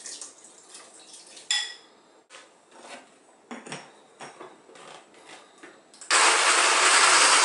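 Metal spoon clinking against a glass bowl and light knocks as cooked squash pieces drop into a blender jar and its lid goes on. About six seconds in a countertop blender starts and runs loud and steady, pureeing the boiled butternut squash.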